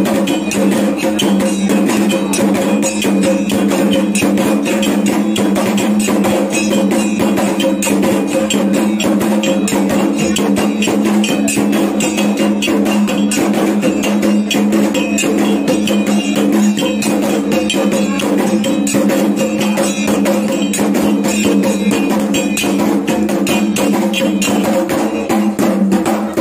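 Kendang drums beaten rapidly and without pause, accompanying a Dayak belian healing rite, over a steady low ringing tone. The drumming stops suddenly at the very end.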